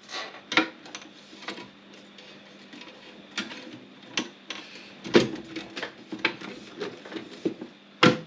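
Metal front cover of an Olympia SG 3 typewriter being handled and fitted back onto the machine: a string of irregular clicks and knocks, metal on metal.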